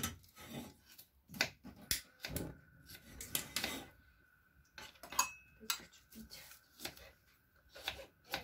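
Kitchen knife slicing radishes on a wooden cutting board: irregular sharp knocks of the blade striking the board, one to a few each second.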